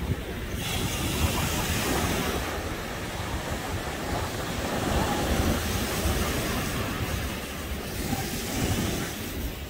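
Ocean surf washing up the beach, swelling and easing, with wind buffeting the microphone.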